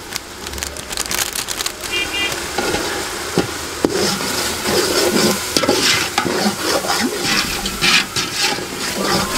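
Onion-and-tomato masala sizzling in oil in a large metal cooking pot. From about four seconds in, a perforated metal skimmer stirs it, scraping against the pot.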